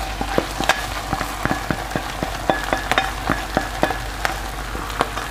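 Honey mushrooms and onion frying in a pan: a steady sizzle with many irregular clicks and scrapes of a utensil against the pan as the fried onion is tipped in from a second pan.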